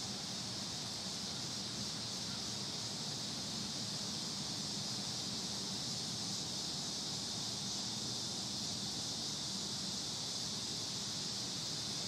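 Summer outdoor ambience: insects droning steadily and high-pitched, with a low steady hum underneath.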